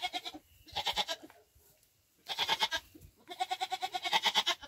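Goat bleating three times, the last call longer and wavering.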